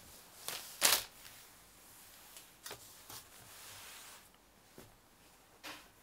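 Quilted fabric rustling and brushing over a table as hands smooth and move it: a few short swishes, the loudest about a second in and another near the end.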